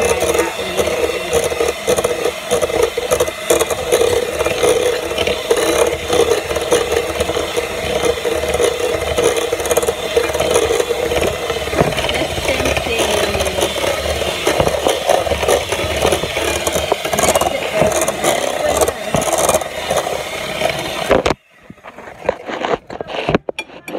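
Electric mixer running steadily while it mixes cookie dough, then switched off abruptly about three seconds before the end.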